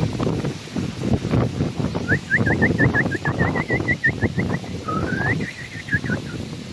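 Low rumble of wind on the microphone throughout. From about two seconds in comes a fast run of short, high chirping calls, then one rising note midway, then more chirps.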